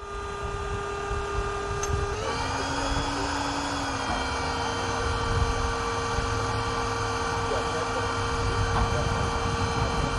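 Portable electric hydraulic power unit running, driving the hydraulic actuator of a missile silo launcher closure door: a steady motor whine over a low rumble, whose pitch steps up about two seconds in.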